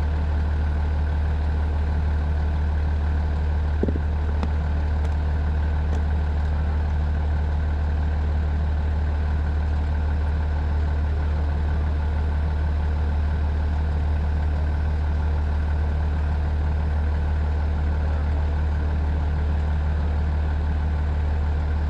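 An engine idling steadily, with a constant deep hum and no revving.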